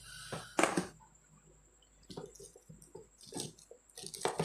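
Packaging being handled by hand: a few short rustles and crinkles of plastic wrap and cardboard as a plastic-wrapped remote control is lifted out of its box. The loudest rustle comes about half a second in, with smaller ones near the middle and end.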